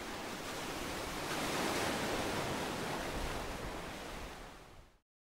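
Ocean surf washing on a shore, a hiss of water that swells and then fades away. It cuts off abruptly about five seconds in.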